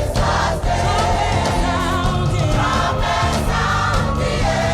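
Choir singing with instrumental accompaniment, several voices holding sustained notes with vibrato over steady bass notes.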